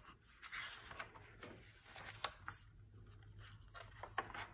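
Faint rustling and light clicks of a paper picture book being handled, its pages turned, over a low steady hum.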